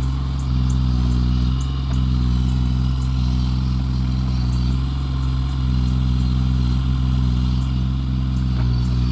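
Engine of heavy equipment running steadily at a constant speed, a deep, even drone.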